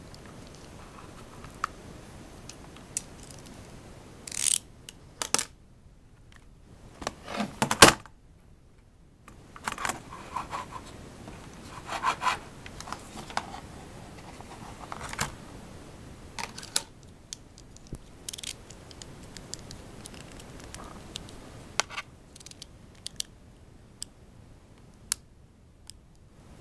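Utility knife blade scraping and prying at rubber anti-slip pads on a plastic keyboard underside: irregular scrapes and sharp clicks, the loudest cluster about eight seconds in.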